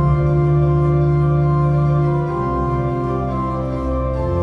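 Pipe organ built in 1785, played with sustained full chords over a deep held pedal bass. The chord changes about halfway through.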